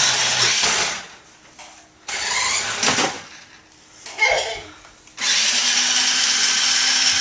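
RC truck's motor and gears whirring in bursts as the throttle is worked: a burst at the start, short ones around two and four seconds in, then steady running from about five seconds on.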